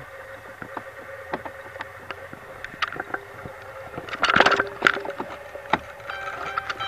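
Scattered clicks and knocks of the key being worked into a 2013 Chrysler Town & Country's ignition, with a louder clatter about four seconds in.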